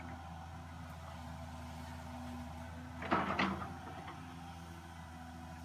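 Cat 315C excavator's diesel engine running steadily, with a brief loud creaking scrape a little after three seconds in as the machine works.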